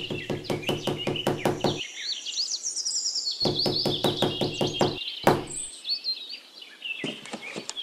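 Small hammer tapping thin painted sticks into sand in quick runs of about six taps a second: one run, a pause of about a second and a half, a second run, then a single louder strike. Birdsong chirps run over the tapping throughout.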